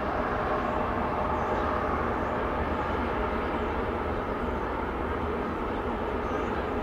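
Jet noise from a Mitsubishi CRJ-900 regional jet's two rear-mounted turbofan engines: a steady rush, with the engine tones that were heard just before now gone.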